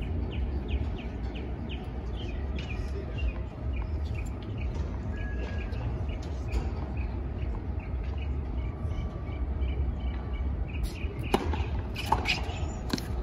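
Open-air tennis stadium ambience: a steady low rumble with birds chirping, then a few sharp tennis-ball strikes on racket strings near the end as a rally gets under way.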